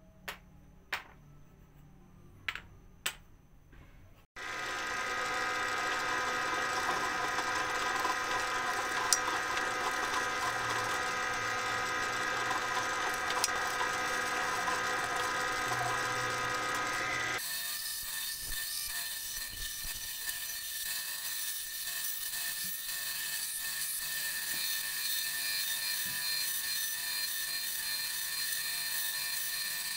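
Four light taps, then a bench power tool running steadily with a fixed-pitch hum for about thirteen seconds. It changes abruptly to a band saw running and cutting a small wooden wheel blank, a hissier sound.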